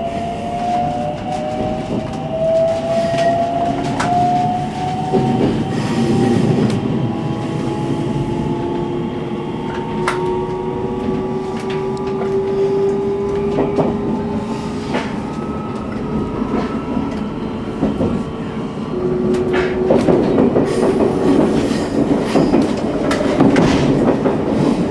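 JR Central 313 series electric train accelerating away, heard from the driver's cab: a traction motor whine that rises steadily in pitch as speed builds, with scattered wheel clicks over rail joints and points. The running rumble grows louder near the end.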